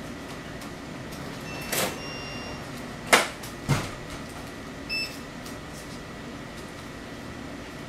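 Shop room tone with a steady hum and a thin high whine. Three sharp knocks, the loudest a little after three seconds, and short electronic beeps around two seconds and again about five seconds in.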